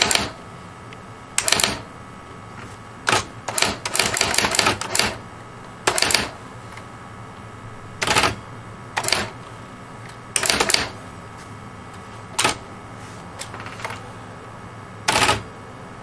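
Communicator electronic word processing typewriter being typed on: about a dozen short bursts of rapid mechanical clacking, irregularly spaced with pauses of one to two seconds between them.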